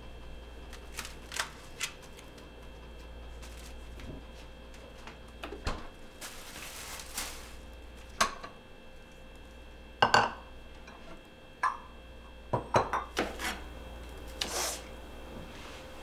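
Kitchen handling sounds: dishes, containers and utensils knocking and clinking as they are set down on a countertop, in scattered strikes, the loudest clatter about ten seconds in and a quick run of knocks a little later. A short rustle comes partway through.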